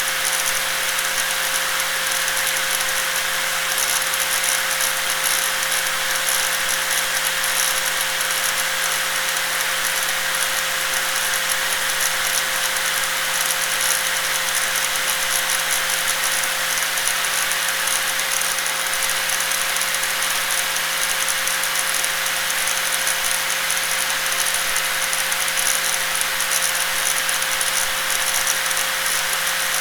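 Electric angle grinder running steadily at full speed: a constant high whine over a dense, rattly hiss, with no change in pitch or level.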